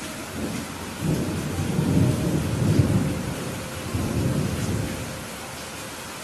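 Steady heavy rain with a rolling thunder rumble that swells about a second in, peaks in the middle, surges once more and fades away near the end.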